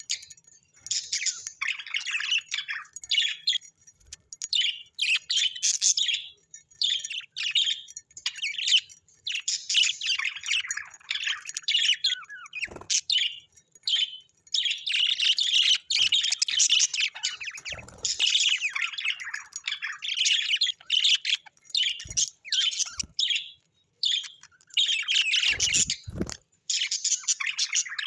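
Birds chirping and chattering almost without a break, in quick high-pitched runs with short pauses. There are a few dull low thumps in the middle and near the end.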